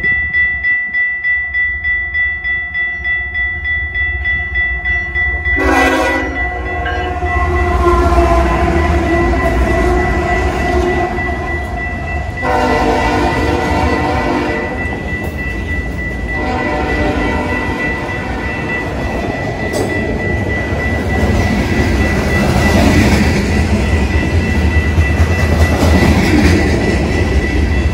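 A steady electronic bell rings throughout, typical of a grade-crossing bell, as a Canadian Pacific freight led by two GE Evolution-series diesel locomotives approaches. About six seconds in, the locomotive's multi-chime air horn sounds in a series of long blasts lasting about ten seconds. From about halfway through, the freight cars roll past with a loud, continuous rumble and clatter of wheels on rail.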